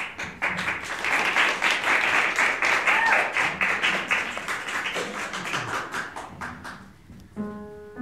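Small audience applauding, the clapping fading away after about seven seconds. Near the end an upright piano begins, playing sustained chords.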